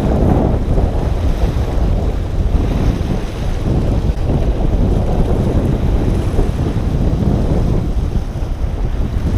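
Wind buffeting the microphone, with small waves washing over rocks at the water's edge.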